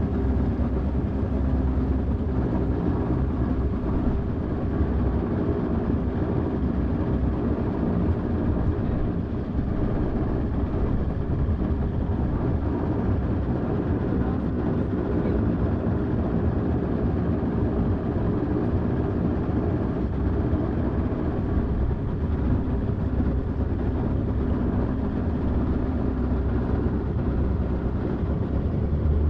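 Motorboat engines running at a steady low cruising speed, a constant deep drone with no change in pace.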